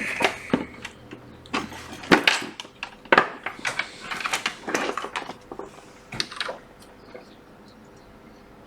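Handling noise on a repair bench: a series of irregular clicks, taps and short scrapes as a charger cable is plugged into a MacBook Air. The sounds thin out to faint background near the end.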